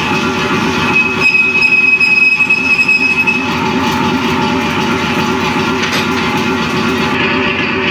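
Large engine lathe running with its workpiece turning, giving a steady pulsing mechanical rumble. A thin high whine sounds for about two seconds shortly after the start.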